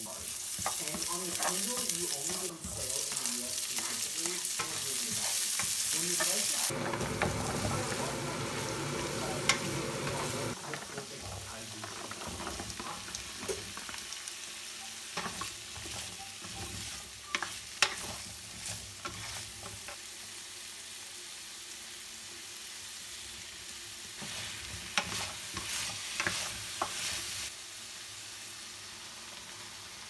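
Vegetables sizzling in hot oil in a nonstick wok while a plastic slotted spoon stirs them, the spoon clicking and scraping against the pan now and then. The sizzle is loudest for the first ten seconds or so, then settles to a quieter, steady frying.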